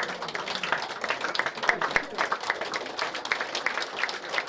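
A crowd applauding: many hands clapping steadily, with voices mixed in.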